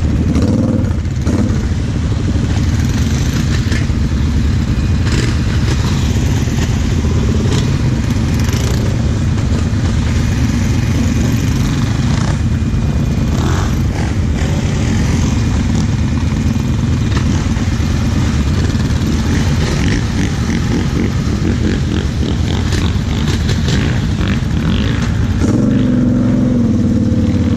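Kawasaki KFX 700 V-Force quad's V-twin engine running as it drives over rough, muddy ground, heard close up from a camera on the quad, with knocks and rattles from the chassis over bumps. Near the end the engine settles to a steadier, even note.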